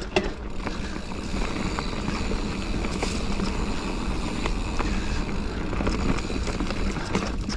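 Giant Fathom mountain bike ridden along a dirt trail: steady tyre and drivetrain rattle with wind rumble on the action-camera microphone, and a few sharp knocks over bumps, the strongest right at the start.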